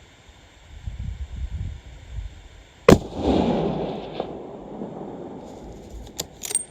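A single hunting-rifle shot about three seconds in, its report echoing and dying away over a couple of seconds. A few sharp clicks follow near the end.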